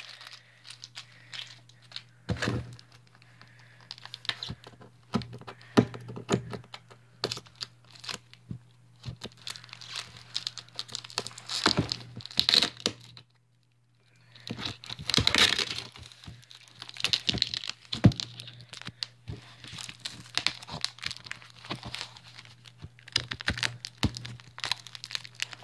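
Packing tape being picked at and peeled from a cardboard shipping box, in scattered bursts of tearing, crackling and crinkling as the box and its packaging are handled. The sound cuts out completely for about half a second just past the middle.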